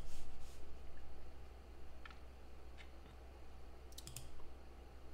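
A handful of scattered computer mouse and keyboard clicks over a steady low hum.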